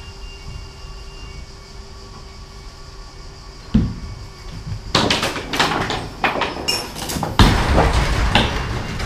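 A single thump about four seconds in. From about five seconds, metal rattling and scraping with repeated clanks and knocks on the truck trailer's wooden deck as load straps and a metal bar are handled. A low engine rumble runs underneath.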